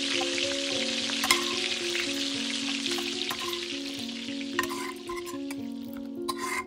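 Food sizzling and crackling in hot oil, a steady hiss with scattered sharp pops, under background music of slow, stepping notes.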